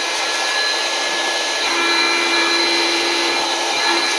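Electric heat gun running steadily, blowing hot air onto heat-shrink tubing over the wires: a steady rush of air with a whine from its fan motor.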